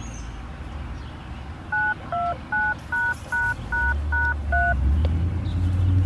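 Eight short DTMF touch-tone beeps, each two tones at once, about three a second over a low rumble. They are typical of the radio activation code sent to an outdoor warning siren just before it sounds.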